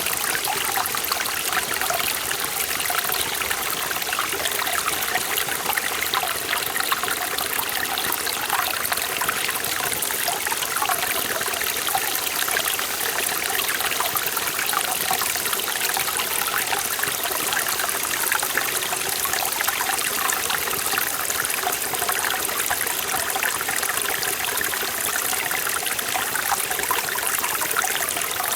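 Forest valley stream flowing and splashing over rocks, a steady, full rush of water with fine trickling and bubbling.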